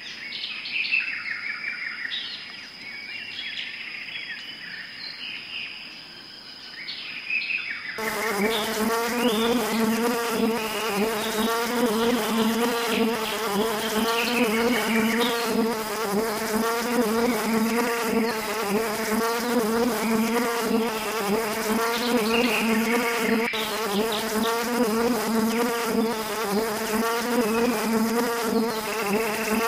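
A swarm of paper wasps buzzing around their open comb, a dense, steady drone of many wings with a slightly wavering pitch. It comes in suddenly about eight seconds in, after a quieter stretch with faint chirps.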